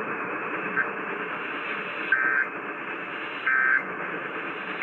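Emergency Alert System end-of-message signal: three short bursts of warbling digital data tones, about a second and a half apart, the last right at the end. They sound over a steady radio static hiss.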